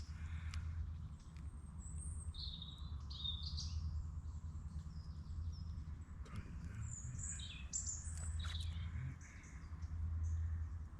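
Small birds chirping and singing in short scattered phrases over a steady low rumble.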